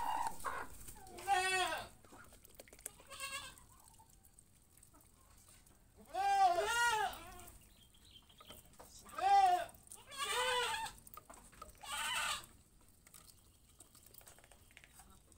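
Farm animals calling: about six drawn-out, bleat-like calls, some broken into quick wavering pulses, a few seconds apart.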